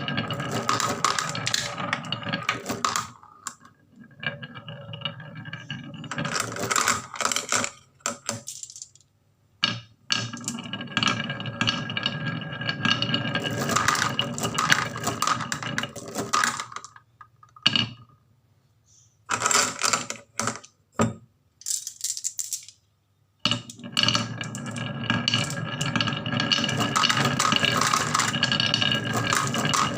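Marbles clattering and rattling down a wooden marble run, in runs of rapid clicks broken by a few brief pauses before the next batch starts.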